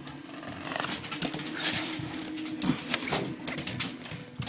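A pet dog making small noises, among scattered short clicks and knocks.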